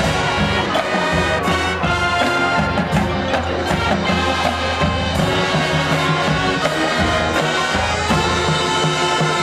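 Marching band playing, brass holding sustained chords over percussion, with sharp cymbal and mallet strikes through the first few seconds.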